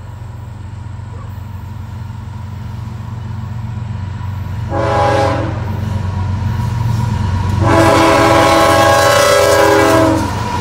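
Horn of a CSX GE ES44AC-H diesel freight locomotive sounding for a grade crossing: a short blast about five seconds in, then a long blast of about two and a half seconds near the end, the closing short-long of the standard crossing signal. Under it the locomotives' diesel engines rumble, growing louder as the train approaches.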